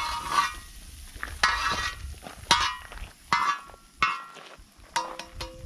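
Metal spatula scraping and stirring sausage across the quarter-inch steel disc of a propane Fire Disc cooker as the meat fries and sizzles, in about five strokes roughly a second apart. Near the end come a few sharp metallic clinks that ring briefly.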